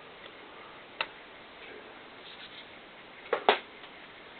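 A few sharp clicks from parts of a .22LR M4-style rifle being handled. The loudest is a double click about three and a half seconds in.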